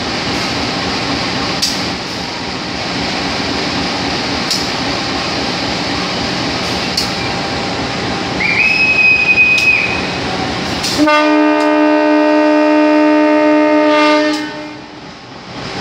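Diesel locomotive (CC 203 class, a GE U20C) sounding its horn: one long chord of several tones for about three seconds, starting about eleven seconds in and dying away. Before it there is a steady rumble of engine and station noise, with a short high whistle blast about two seconds before the horn.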